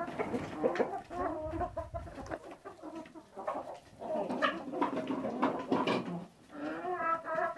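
Domestic hens clucking and calling in short, repeated notes, with a longer drawn-out call near the end.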